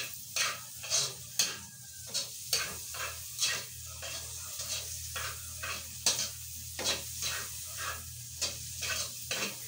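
Cubes of pork fat sizzling as they render in a wok, with a metal spatula scraping and stirring the pan in repeated strokes, about two a second.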